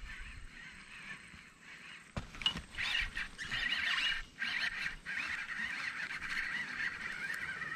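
Birds calling in a dense, wavering run of calls that sets in about two and a half seconds in.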